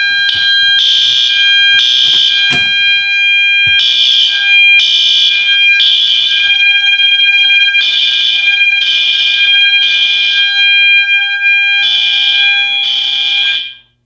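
Two System Sensor fire alarm horns sounding together: loud blasts in the temporal-three evacuation pattern (three blasts, a pause, repeated) over a steady continuous tone. The system was put into alarm by a manual pull station, and it all cuts off suddenly near the end when the panel is reset.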